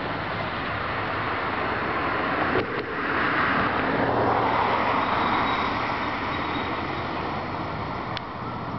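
Steady road traffic noise, with one vehicle passing that swells and then fades over a few seconds near the middle.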